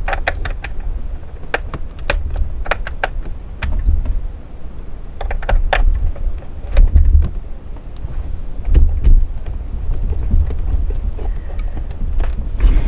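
Handling noise from fitting parts onto an unpowered sewing machine: scattered sharp clicks and knocks over a run of low thumps and rumble.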